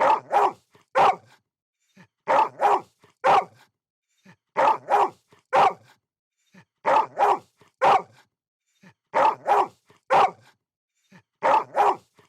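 Dog barking in repeated sets of three short, sharp barks, a new set about every two seconds, with silence between.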